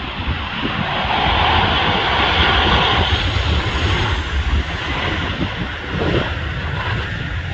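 Boeing 737 jet engines on landing approach: a rushing whine that swells as the airliner passes close, loudest a few seconds in, then eases. Gusty wind rumbles on the microphone underneath.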